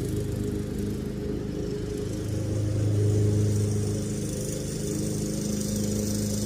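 Lawn mower engine running steadily, its hum swelling briefly a few seconds in.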